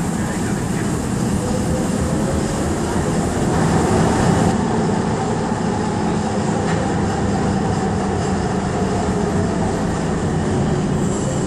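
Budapest Metro Line 1 train running through the tunnel, heard from inside the car: a steady rumble of wheels on rail with a faint whine that wavers in pitch.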